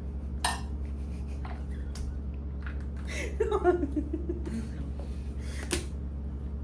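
Tableware clinking twice, sharp single clicks about half a second in and near the end, with a brief falling vocal sound in the middle, over a steady low hum.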